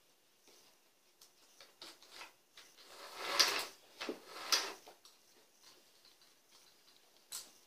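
Clicks and rattles of an Intertool DT 2204 electric chainsaw's bar and chain being handled and fitted onto the saw body. A louder stretch of rattling around the middle holds two sharp clicks about a second apart, with scattered small clicks before and after.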